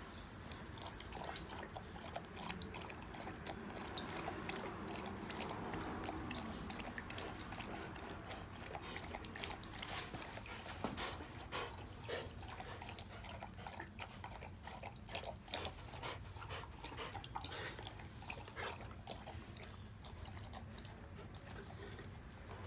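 Akita dog lapping water from a stainless steel bowl: a long run of quick wet laps and small splashes.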